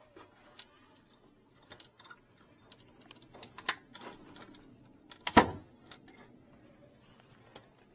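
Scattered light clicks and taps of handled equipment, with one louder knock a little over five seconds in.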